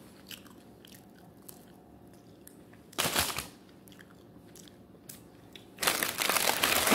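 Close-miked eating of chicken wings: soft chewing and mouth clicks, broken by two loud crunching rustles, a short one about three seconds in and a longer one near the end.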